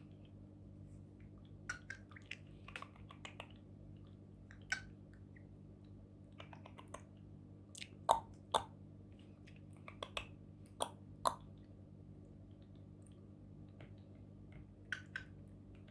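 Cockatiel making scattered clicking, drip-like mouth sounds in imitation of water, some clicks coming in quick pairs, over a steady low hum.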